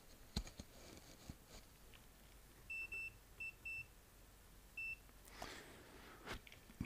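Digital multimeter beeping: about five short, high beeps in quick succession as it is stepped through its modes to diode test, with a few faint clicks before them.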